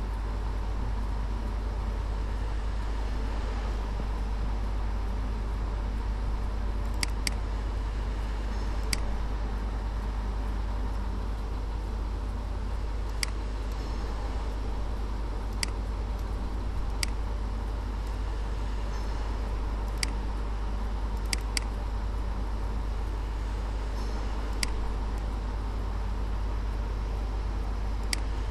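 Computer mouse clicking about a dozen times, singly and in quick pairs, every few seconds, over a steady low hum and hiss.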